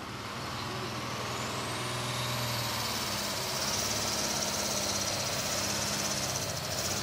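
Diesel engine of a pulling tractor at full throttle as it pulls the weight-transfer sled off the line. A high whine climbs in pitch over the first two seconds, then the engine holds a steady hard running note.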